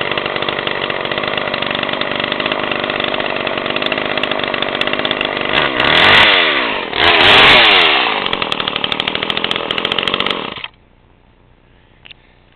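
Homelite Super 2.6 two-stroke chainsaw running at idle, revved up twice about six and seven seconds in, then shut off abruptly about ten and a half seconds in.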